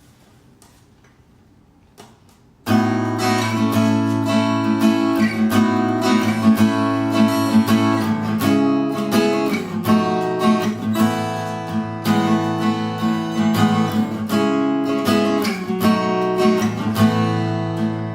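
Tanglewood TW28 CSN cutaway dreadnought acoustic guitar, with a solid cedar top and mahogany back and sides, strummed in a steady rhythm of chords. It starts about two and a half seconds in, after a near-quiet moment.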